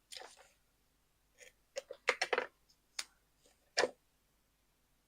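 Craft supplies being handled on a work table: a brief rustle, then a run of short clicks and knocks, with one louder knock near the end.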